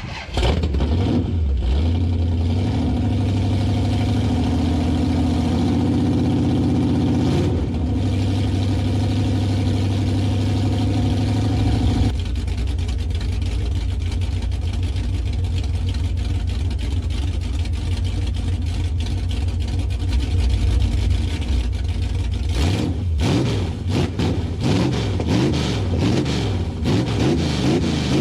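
Stock 383 big-block V8 with a small Lunati cam, running with the exhaust unhooked. It fires up at the start and runs at a fast idle, dropping to a lower idle about twelve seconds in, then is blipped up and down in quick revs near the end.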